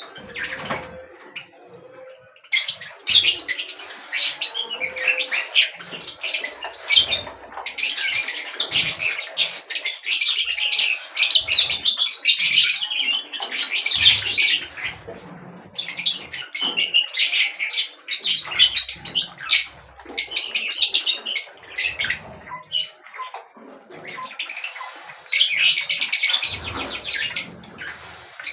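Many small birds chirping and twittering together in busy bouts, with short lulls between them.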